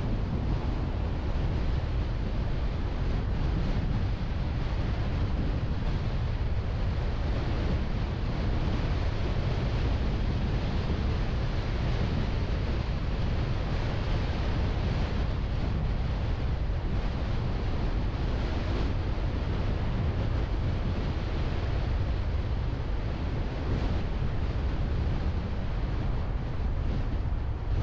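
Steady wind noise rushing over the onboard camera's microphone, over the low rumble of the car driving on the road.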